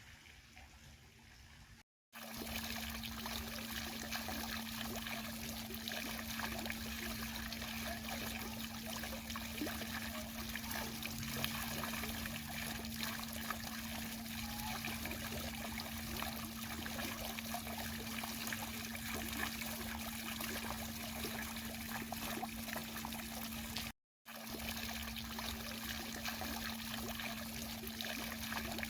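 Fountain water splashing and trickling in a steady rush, with a steady low hum underneath. It is quieter for the first couple of seconds, then cuts out briefly twice, once about two seconds in and once near the end.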